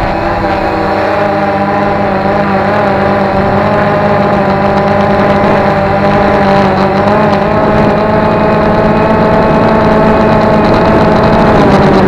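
Multirotor drone's electric motors and propellers whining steadily in flight, heard up close from a camera mounted on the drone itself, with the pitch wavering slightly as the motors adjust speed.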